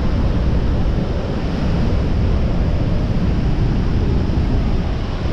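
Steady roar of Niagara's Horseshoe Falls and the churning water at its foot, mixed with heavy wind buffeting the microphone.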